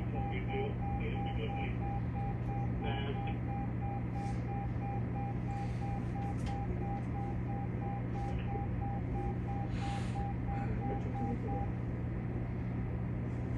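Train cab warning buzzer beeping rapidly and evenly, a single pulsing tone that stops about two seconds before the end, over the steady low hum of the stopped train's equipment. A brief hiss about ten seconds in.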